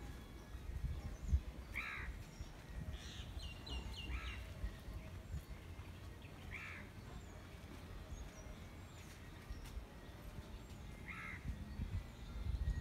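A crow cawing four times, single caws a few seconds apart, with a quick run of higher bird notes after the first caw and a low rumble underneath.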